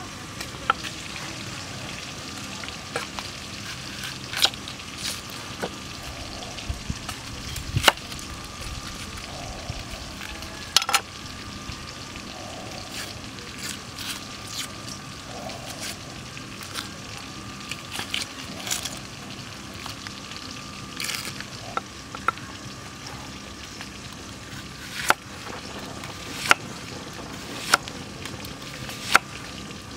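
Knife work on an onion over a wooden chopping board: scattered small clicks and taps while the onion is peeled, then near the end four sharp knife strikes on the board about a second and a half apart as it is sliced into rings. Under it runs a steady crackly hiss with a faint constant high tone.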